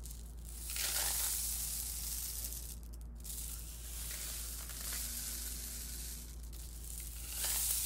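Homemade rain stick, a paper towel roll holding rice and a twisted length of crumpled aluminium foil, being turned over so the rice trickles down through the tube with a rain-like hiss. The hiss swells loudest about a second in and again near the end, dipping briefly in between as the tube is tipped back.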